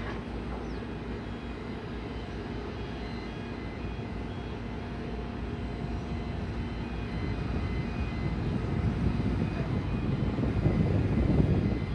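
Boeing 737 MAX 8's CFM LEAP-1B jet engines running at taxi power: a steady hum with faint high whining tones, growing louder over the last few seconds.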